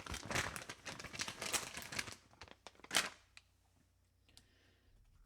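Crinkling, rustling handling noise with many small crackles for about three seconds and a sharp crackle near the end of that stretch, then only faint scattered clicks.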